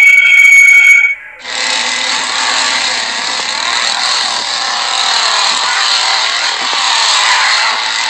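A shrill, piercing high tone for about the first second cuts off. After a brief dip, a chainsaw runs at high revs, a harsh steady buzz that holds to the end.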